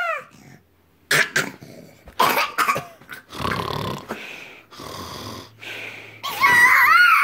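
A toddler squealing and shrieking with play, with a loud high-pitched squeal that rises and falls about six and a half seconds in, while a man makes a few short rough pretend-snoring noises.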